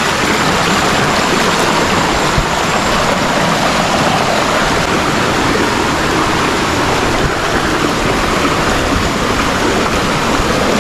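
Steady rush of flowing water, loud and even throughout.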